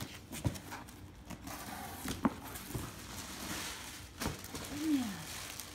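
Corrugated cardboard box being torn open by hand: flaps pulled back and tissue paper rustling, with a few sharp knocks of the box. Near the end a short falling voice sound.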